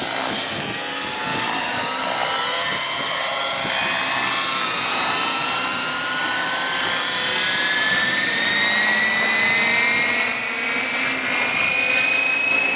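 Electric-converted Thunder Tiger Raptor 90 SE radio-controlled helicopter spooling up on the ground. The whine of its motor and gears rises steadily in pitch and grows louder as the main rotor speeds up.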